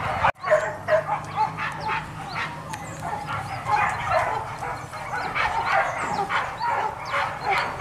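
Several hunting dogs barking and yelping over one another in a continuous, overlapping chorus.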